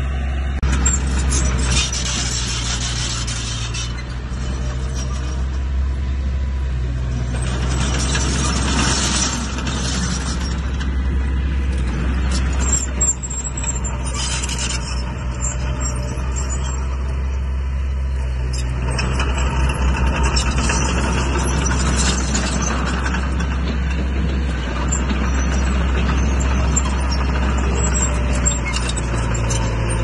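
Heavy diesel earthmoving machinery running steadily with a deep engine drone, with several spells of harsh rushing noise over it.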